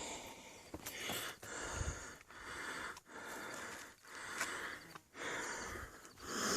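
Heavy, rhythmic breathing of a hiker climbing a steep trail, one hard breath about every second, with a few sharp clicks.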